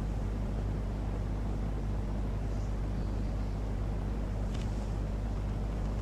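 A steady low rumble with a faint hiss over it, and a few faint ticks about four and a half seconds in.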